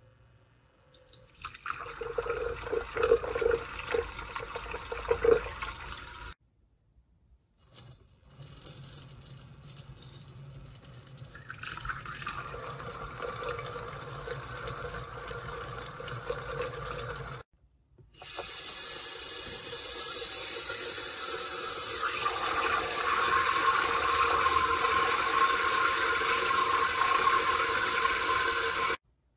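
Water swirling and churning in a tall glass as a magnetic stirrer spins a whirlpool vortex down toward the stir bar, with a steady tone under the churning. It cuts off abruptly about six seconds in and again about seventeen seconds in, and the last stretch is the loudest.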